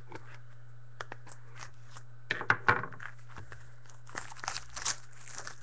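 Plastic shrink wrap being slit and torn off a sealed box of trading cards. A few small clicks, then a loud burst of crackling tears about two and a half seconds in, and more crinkling near the end.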